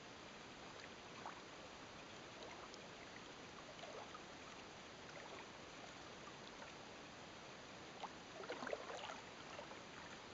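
Faint water lapping and trickling against a small boat's hull over a steady hiss, with a brief run of small splashes about eight seconds in.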